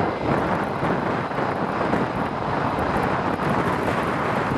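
Engines of a twin-engine widebody jet airliner, a loud, steady rush of jet noise as it moves past.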